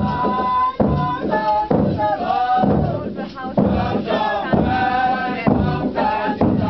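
Group of Chang Naga performers chanting together in short sung phrases, with held and sliding notes.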